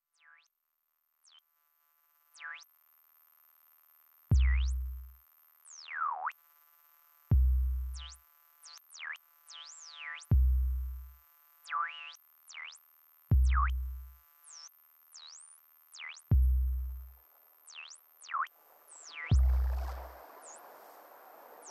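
Electronic music from a VCV Rack software modular synthesizer. Sparse blips open it, then a deep bass kick falls about every three seconds. Between the kicks, synth tones swoop down in pitch and back up again, and a hiss of noise swells in near the end.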